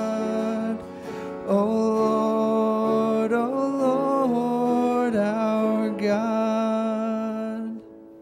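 Church worship-band music playing the closing held notes of a worship song, with guitar. It stops shortly before the end.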